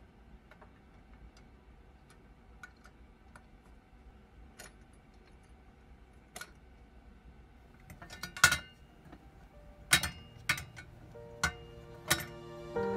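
Heavy pressed-steel toy truck parts being fitted together by hand: faint scattered clicks, then a run of sharper metallic clicks and clinks in the second half as the dump bed seats onto the chassis. Music comes in near the end.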